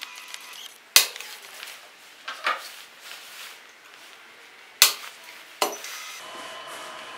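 Fiber Fox Mini 6S fusion splicer being closed up: sharp plastic clacks as its fiber clamps and wind-protector lid are snapped shut, the loudest about a second in and just before five seconds. From about six seconds the splicer gives a steady faint whine as it starts its splicing cycle.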